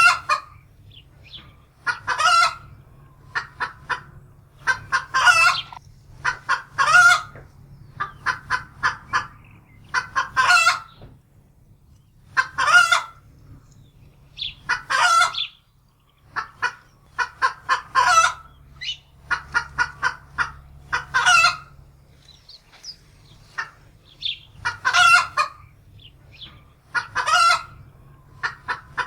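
Domestic hen cackling in fright: runs of quick clucks that build each time into a loud, drawn-out squawk, repeated every two to three seconds.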